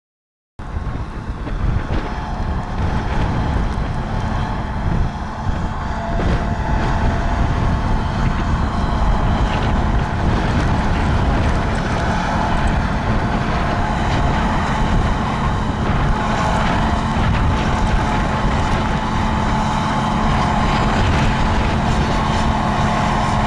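John Deere 7280R tractor's diesel engine running steadily under load while pulling a seven-furrow plough, a constant drone with wind buffeting the microphone. It cuts in abruptly about half a second in.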